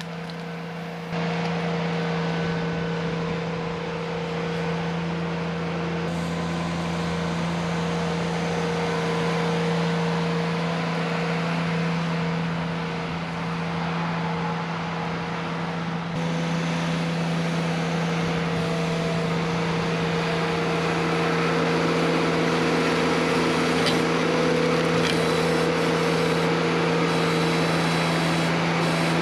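Ventrac compact tractor engine running steadily at working speed, a constant hum with a steady higher tone above it, stepping up in level about a second in.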